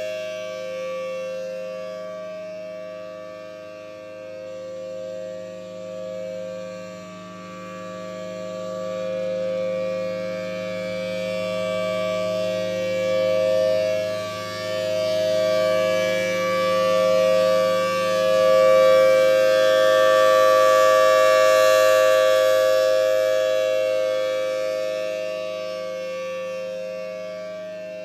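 Federal Signal Thunderbolt 1000T outdoor warning siren sounding a steady tone: two pitches held together as a chord, unchanging in pitch, its loudness swelling and fading slowly as the rotating siren head turns.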